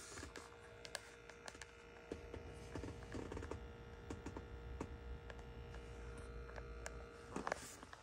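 Faint electrical buzz, a ground-loop hum made of several steady tones, from the dashboard and centre console of a Tesla Model 3, which the owner links to the 2022.36.6 software update. It stops near the end, and small handling clicks come through it.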